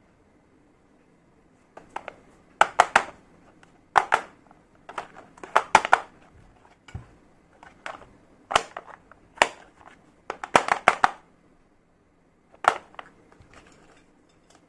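Sharp clicks and clacks of small hard-plastic toy kitchen pieces being handled and set down, in irregular single taps and quick clusters.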